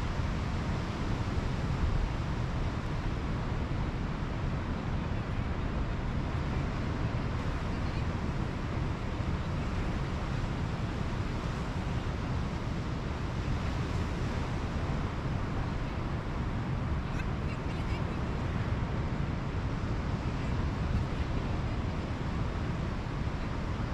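Pacific Ocean surf washing steadily onto a sandy beach.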